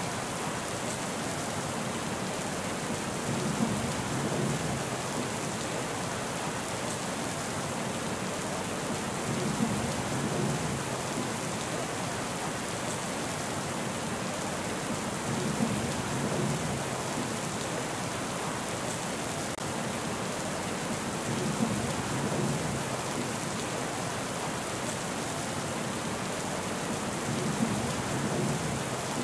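Steady rain falling, with a low rumble of thunder swelling about every six seconds, each starting with a brief sharp peak.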